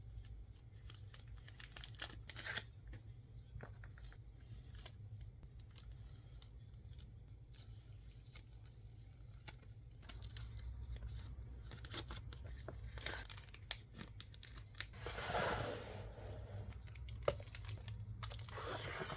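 Hands packing photocards: many small taps and clicks of cards and plastic packaging being handled, with crinkling, and a longer tearing sound about fifteen seconds in and another near the end.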